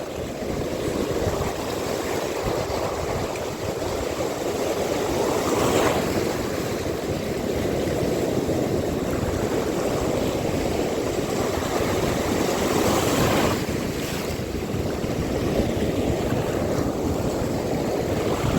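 Sea waves washing and breaking on the shore in a steady surf, with wind on the microphone. Two waves break louder, about six and thirteen seconds in.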